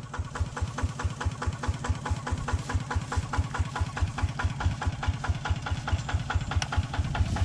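Single-cylinder diesel engine of a two-wheel walking tractor idling, with a steady, rapid, even beat.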